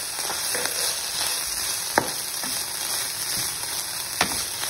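Vegetables and omelette strips sizzling in hot oil in a nonstick pan as a wooden spoon stirs them, a steady hiss with two short sharp scrapes or taps of the spoon on the pan, about two seconds in and near the end.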